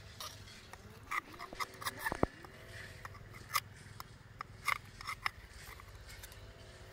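A steel rebar rod clicking and scraping against an oyster shell as the shell is pried open and the meat cut loose: an irregular run of sharp ticks and scrapes, the loudest about two seconds in.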